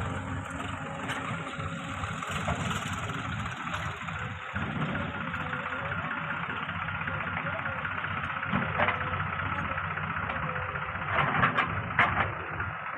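Diesel engines of a backhoe loader and tractors running steadily, with a few sharp knocks about two-thirds of the way in and a cluster of them near the end.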